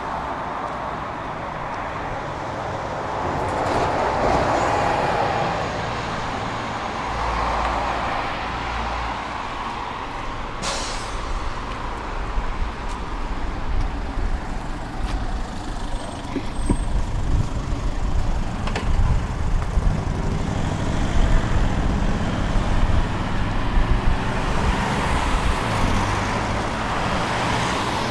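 Tram running on its rails, heard from on board: a steady rumble of wheels and running gear that grows louder and more uneven in the second half, with a single sharp click about ten seconds in.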